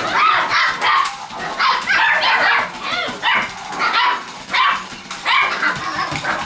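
Six-week-old border collie puppies yapping: a string of short, high barks and yips, about two a second.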